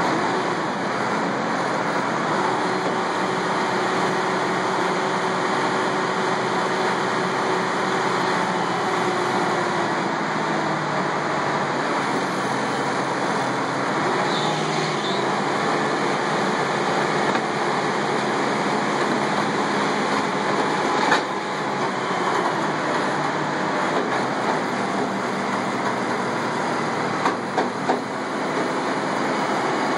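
Diesel engine of a telehandler running steadily under load as its forks press cardboard down into a steel roll-off dumpster. There is one sharp bang about two-thirds of the way in and three quick knocks near the end.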